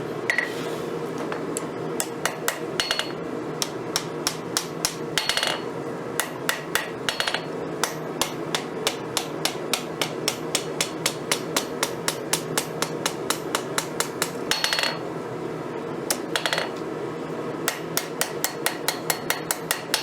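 Hand hammer striking steel on an anvil, forging a knife blade from a broken crescent wrench: runs of quick ringing blows, about three a second, broken by short pauses, over a steady rushing noise.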